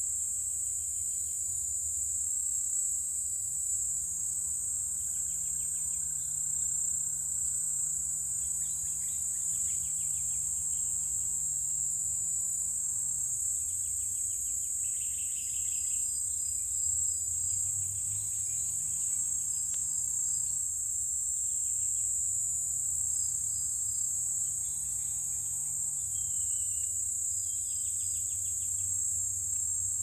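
A steady, high-pitched chorus of forest insects, with short rasping trills that come and go over it and a low hum underneath.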